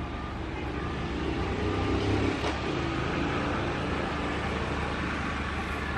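A motor vehicle engine running steadily, with a low rumble and hiss, a little louder about two seconds in.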